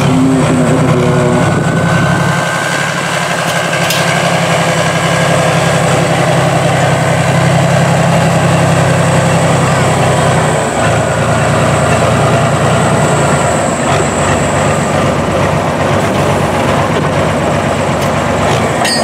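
Volvo pulling truck's diesel engine running steadily at low revs while the truck moves slowly, with a brief dip in the engine note about halfway through.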